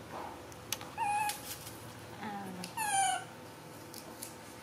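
Baby macaque giving two short, high-pitched squeaky calls about two seconds apart, each falling slightly in pitch.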